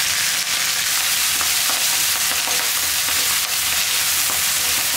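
Fresh fenugreek leaves, shallots and garlic sizzling in oil in a coated kadai, with a spatula stirring and scraping through them in short strokes.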